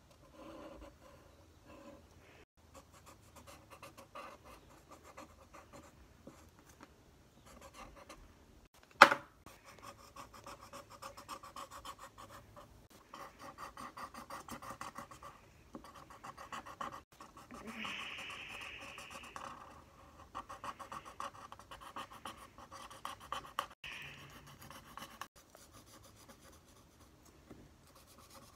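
Felt-tip marker rubbing back and forth on paper in quick, uneven runs of strokes while an area is coloured in, with one sharp click about nine seconds in.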